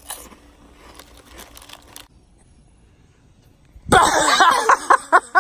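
Faint rustling and clicks, then about four seconds in a loud person's voice breaking into quick bursts, like laughing or yelling.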